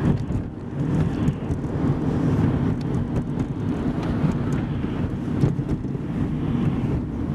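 Car driving: steady low road and engine noise.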